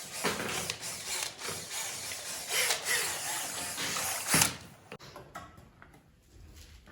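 Scraping and rubbing with many small clicks, from tools and materials being handled. A sharp knock about four and a half seconds in, then only a few light clicks.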